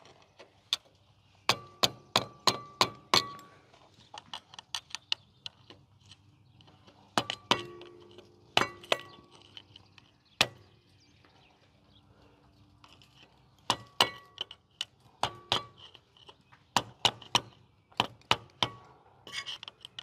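Hammer striking a flat-tip screwdriver to knock the locking tabs off steel fifth wheel mounting bolts: sharp metallic clinks in bunches of a few blows with short pauses between, some blows leaving a brief ring.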